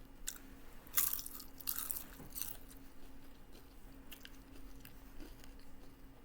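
Close-up crunching and chewing of nacho cheese Doritos tortilla chips with taco salad. The loudest crunches come in the first two and a half seconds, followed by softer chewing.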